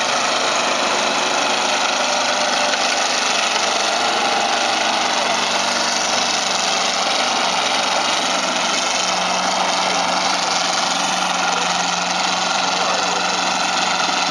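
V8-powered Allis-Chalmers WD45 tractor engine running hard under load as it drags a weight-transfer sled, a loud, steady engine note with no pauses.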